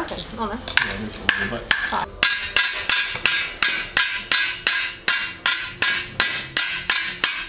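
Hammer blows on a steel tool against a stuck bolt on an automatic transmission: a steady run of sharp metallic strikes with a ringing edge, about three a second.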